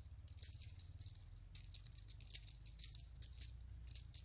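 Small ice-fishing reel clicking faintly in quick irregular ticks as it is turned a little at a time to work the bait up off the bottom, over a low steady hum.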